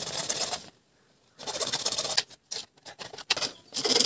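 Hacksaw blade cutting through PVC pipe with rasping back-and-forth strokes. They break off near the first second, come back in short choppy bursts, and run steadily again near the end.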